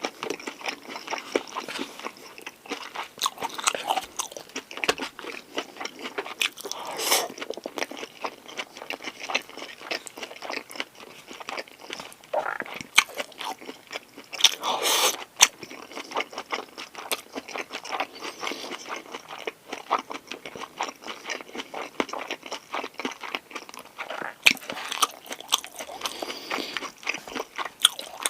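Close-miked chewing and crunching of food from a Korean pork galbi lunchbox, with a steady run of small wet mouth clicks. Louder crunchy bites come about 7 and 15 seconds in.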